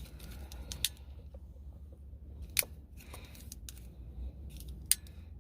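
Small hard clicks and taps of paddle shifter parts and their bracket being handled and fitted at the steering wheel, three of them sharper than the rest, over a steady low hum.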